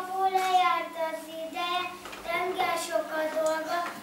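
Young children singing a song, their voices holding long steady notes with short breaks between phrases.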